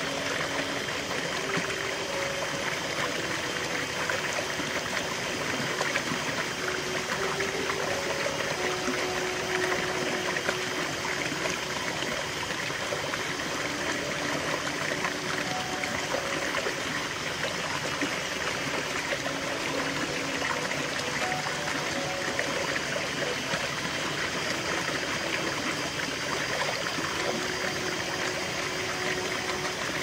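Small rocky stream running, its water splashing down a little cascade between boulders into a shallow pool: a steady, even rush with a little gurgling.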